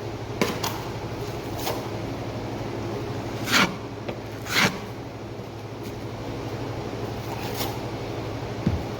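Taping knife working joint compound onto a drywall patch: a few short scrapes and taps, the two loudest about three and a half and four and a half seconds in, over a steady low hum.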